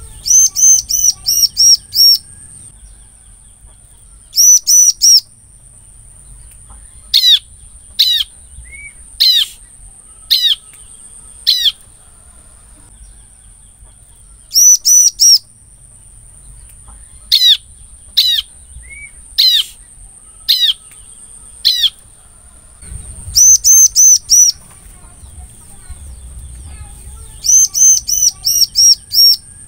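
A bar-winged prinia (ciblek) calling from a cage. Bursts of fast, high repeated notes alternate with runs of single sharp down-slurred notes about a second apart.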